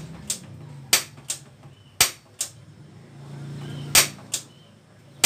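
Aluminium rice pot's lid clattering on its rim as the rice boils: sharp metallic clicks, mostly in pairs, every second or two.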